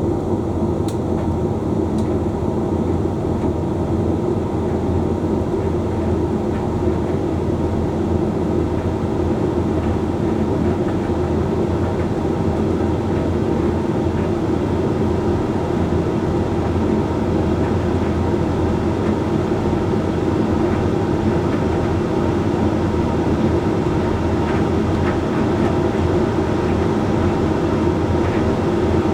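Hoover Link X Care HLX C10DRGR condenser tumble dryer running mid-cycle on its Whites programme: a steady, even hum of the motor and fan as the drum turns.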